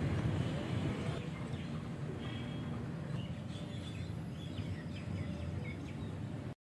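Faint, short bird chirps scattered over steady background noise, cutting off abruptly near the end.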